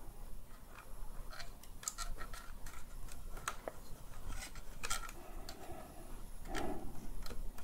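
Small scattered clicks and ticks of plastic parts and wires being handled by fingers, as wires are worked back into the circuit-board connection inside a Dyson V10 cordless vacuum's handle.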